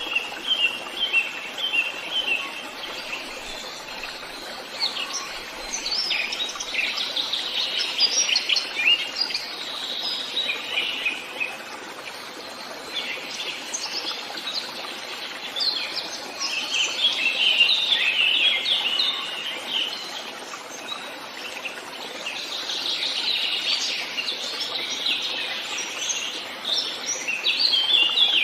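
Several birds singing and chirping in a forest, with quick trills and twitters coming in waves, over a steady background hiss.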